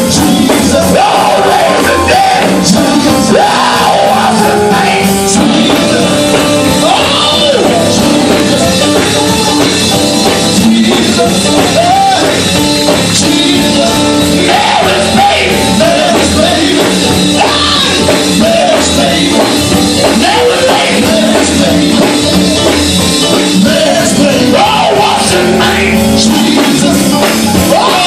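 Loud live gospel band music with voices singing over it.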